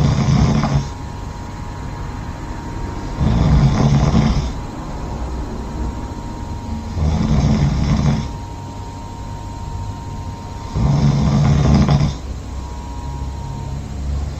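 A sleeping person snoring loudly and regularly: a low, buzzing snore about every three and a half to four seconds, each lasting a little over a second.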